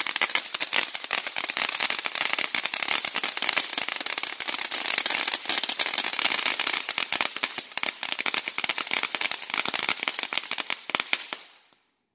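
Consumer firework going off in a dense, rapid stream of crackling pops for about eleven seconds, then dying out and stopping near the end as the firework burns out.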